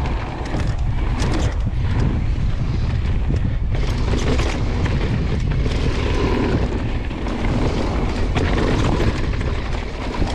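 Wind buffeting the microphone and the rumble of a downhill mountain bike descending a trail at speed, with scattered sharp knocks from bumps.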